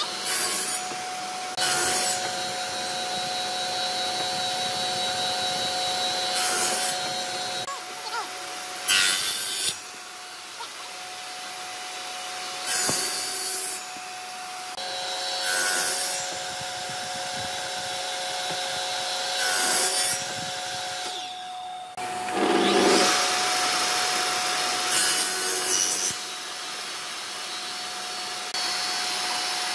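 Table saw running with a steady whine while its blade cuts a series of shallow angled kerfs into an old railway sleeper. Each cut is a short burst of sawing noise, about ten of them a few seconds apart.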